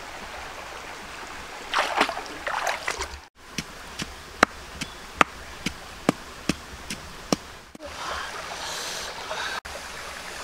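Running water with a few louder splashes about two seconds in, then a run of sharp, evenly spaced clicks, about two or three a second, then running water again.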